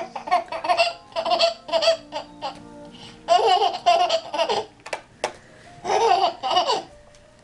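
Toddler laughing in a series of short, high-pitched bursts with pauses between, at a cat pawing at a glass door.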